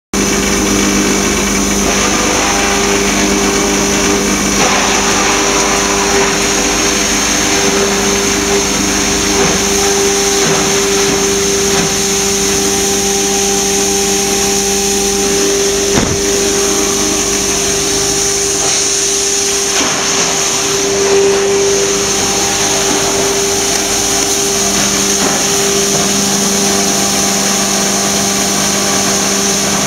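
EPS styrofoam shredder running as it shreds foam: a steady motor hum with a loud hiss from the blower and the flying foam beads. There is one sharp click about sixteen seconds in.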